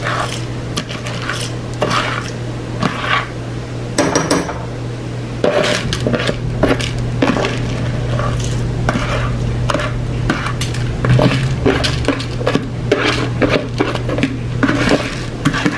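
Pots, pans and utensils clattering and clinking in irregular knocks while a meal is handled at the stove, over a steady low hum.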